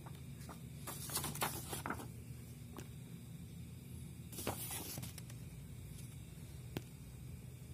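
Paper instruction manual being handled, its pages rustling in short bursts about a second in and again about four and a half seconds in, with a couple of light clicks, over a faint steady low hum.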